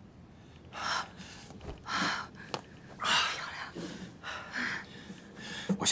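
A frightened woman breathing hard and gasping, with quick noisy breaths about once a second. A light click is heard about two and a half seconds in.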